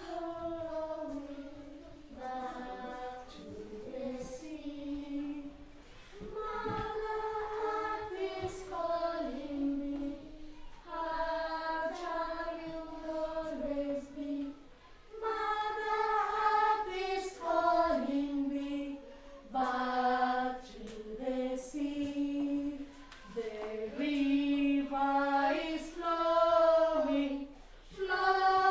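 A class of young children singing together with a woman's voice, unaccompanied: sung phrases of held notes, with short breaths between them.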